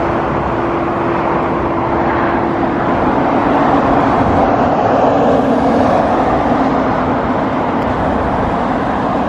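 Steady road traffic: cars and SUVs passing on a multi-lane road, a continuous rush of tyre and engine noise. A steady hum runs underneath and drops slightly in pitch about four seconds in.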